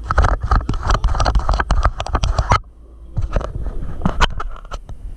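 Rain pattering on a car while it runs, dense with small taps and clicks. About two and a half seconds in, the steady running noise cuts off abruptly, leaving scattered clicks and taps.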